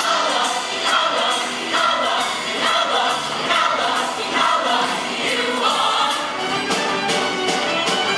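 Show choir singing in full voice over a band accompaniment, with sung phrases landing on a steady beat.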